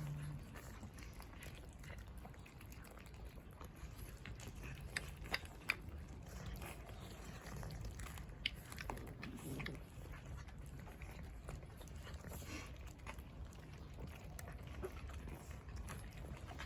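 Cats chewing, with scattered sharp crunches over a low steady rumble.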